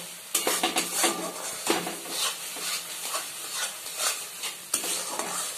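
A metal spatula stirring and scraping a thick spice paste around a metal kadai in repeated, irregular strokes, with the paste sizzling in the oil as it fries. The masala is being cooked down until the oil separates from it.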